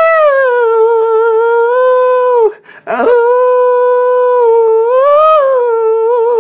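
A white wolf howling. One long, steady howl breaks off about two and a half seconds in. After a short gap a second howl swoops up from low and holds, rising slightly near the end.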